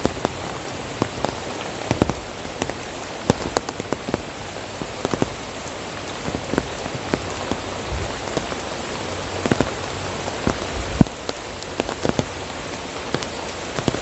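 Steady hiss of rain with many irregular drips and taps scattered through it.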